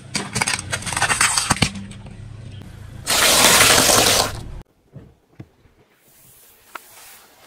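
A car tyre rolling slowly over objects and crushing them. A quick run of sharp cracks and crackles comes in the first second and a half. About three seconds in there is a loud, hissing crunch lasting about a second and a half. After it, only a few faint clicks.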